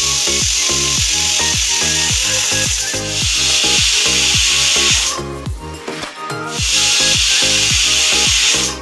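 Stovetop pressure cooker whistling: steam hisses hard out of its weight valve in one long blast, stops for about a second and a half, then blasts again until near the end. Each whistle is the cooker venting at full pressure, the count used to time the cooking.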